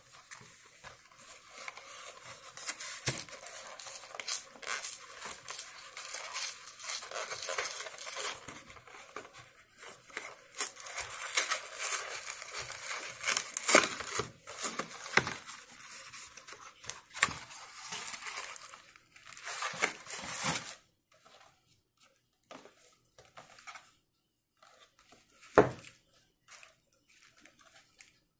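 A cardboard frozen-meal box being torn open and handled: a long stretch of paperboard scraping, tearing and crinkling with sharp snaps, stopping about three-quarters of the way through. After that come faint handling sounds and a single knock near the end.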